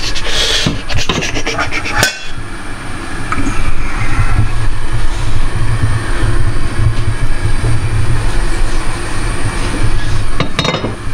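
A pot of octopus boiling hard on the stove, a steady low rumble with hiss. A few clattering knocks come in the first two seconds as the hot boiled octopus is handled.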